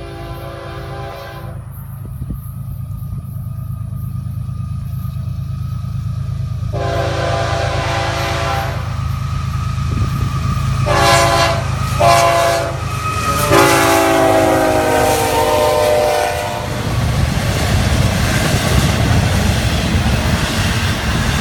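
Horn of the lead Florida East Coast GE ES44C4 diesel locomotive sounding a grade-crossing signal in five blasts of a multi-tone chord: two long, two short and a final longer one. Under it the locomotives' diesel rumble grows steadily louder as they approach and pass. Then the steady rush of the intermodal container cars rolling by.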